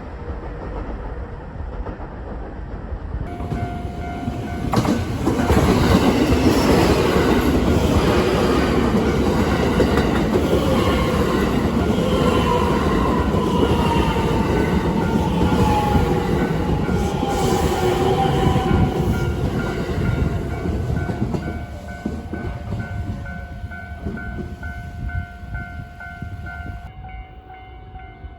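An electric train passes over a level crossing, its wheels clattering on the rails. The noise builds about five seconds in, stays loud for some fifteen seconds and fades near the end. The crossing's warning bell keeps ringing in a steady repeating pulse under it and after it.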